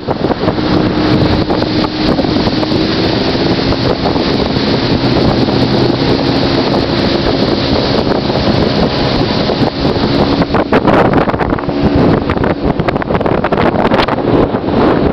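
Small motorboat's engine running steadily at speed, a constant drone under heavy wind buffeting on the microphone.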